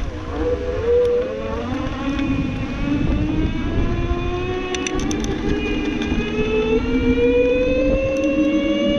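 Inokim Quick 3 Super+ electric scooter's motor whining, its pitch rising steadily as the scooter gathers speed, over a low rumble of wind on the microphone and tyres on wet tarmac. A few brief clicks about five seconds in.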